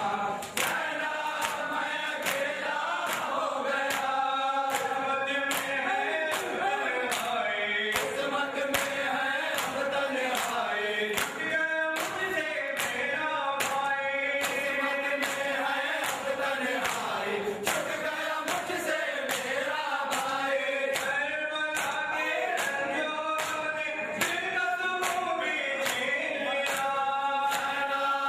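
A group of men chanting a noha, a Muharram lament for Imam Hussain, in unison over a steady rhythm of sharp beats.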